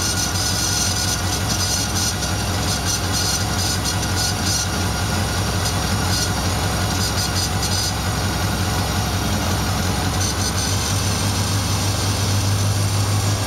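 1972 Farmall Cub's four-cylinder flathead engine idling cold, soon after a cold start at around freezing with the engine not run for months. The steady low drone grows a little stronger near the end.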